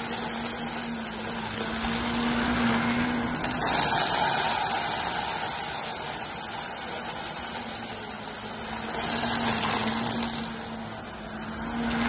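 Shark Navigator upright vacuum running with a steady motor hum and rush of air, pushed and pulled over carpet so that the sound swells and fades with each stroke. There is a light crunch as it sucks up a pile of glitter and small debris.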